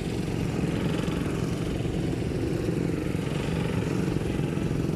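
Small motor vehicle engine running steadily.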